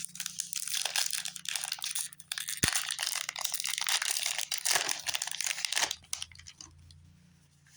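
Foil Pokémon booster pack wrapper crinkling and being torn open, a dense crackle for about six seconds with one sharp tap a little under three seconds in.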